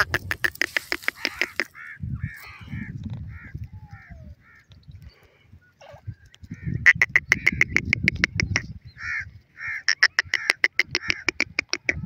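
Francolins (teetar) calling in three runs of rapid, sharp notes, about eight a second, with softer single notes between the runs. A low rumble runs underneath.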